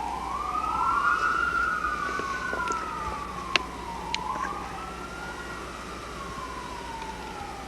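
Emergency vehicle siren wailing, its pitch slowly rising and falling every few seconds, with a second wail overlapping it. A couple of sharp clicks about halfway through.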